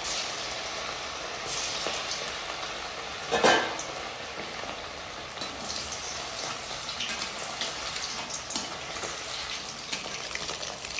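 Batter-coated chicken pieces deep-frying in hot oil in a kadai: a steady crackling sizzle, with one short louder sound a little past three seconds in.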